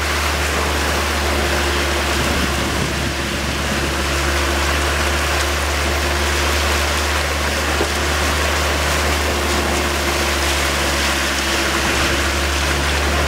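Small open fishing boat's engine running steadily under way, a constant low drone with a steady hum above it, over the rush of wind and churning water.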